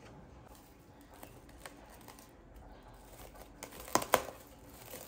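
Faint soft sounds of a hand working sticky bread dough in a glass bowl, then plastic cling film crinkling sharply twice, close together, as it is stretched over the bowl about four seconds in.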